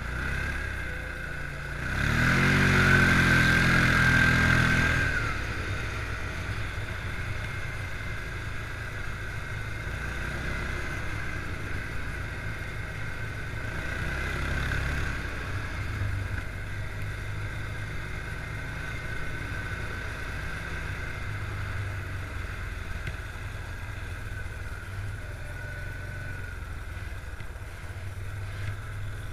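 Stels 700H EFI quad bike engine running under way. A hard burst of throttle comes about two seconds in, its pitch climbing for a few seconds. It then settles to a steady cruise, with a smaller rise in revs about halfway through.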